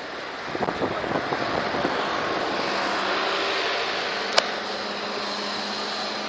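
Steady outdoor rush of road traffic, with a vehicle engine's low hum coming in about two and a half seconds in. A few light knocks sound near the start, and one sharp click a little after four seconds.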